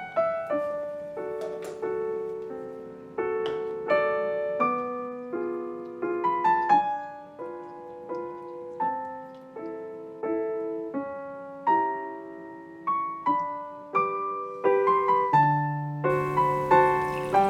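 Background music: a gentle electric-piano melody of single struck notes that ring and fade; near the end a fuller layer with a low bass note comes in.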